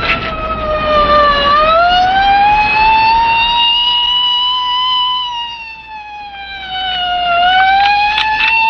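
Police car siren wailing, its pitch sliding slowly down, up over several seconds, then down and up again, dipping in loudness a little past the middle. A few short clicks sound near the start and near the end.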